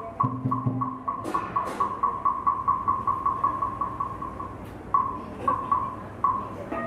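Wooden fish (muyu) knocked in a steady beat that quickens to about four knocks a second, then slows and spaces out, marking time for Buddhist chanting. Two sharper strikes come about a second in, and a bell rings out right at the end.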